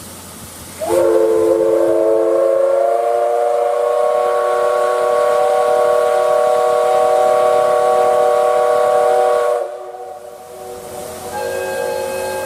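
D51 498 steam locomotive's whistle blown in one long blast of several tones, which slide up slightly as it opens and then hold steady. It is followed after a short gap by a briefer blast of higher tones.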